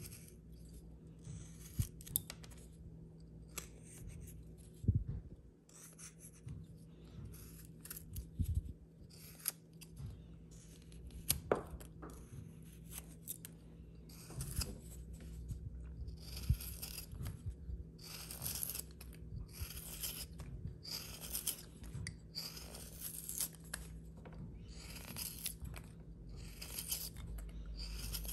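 Carving knife slicing shavings off a block of jelutong wood: a run of short, crisp cuts, coming closer together in the second half, with a few soft knocks.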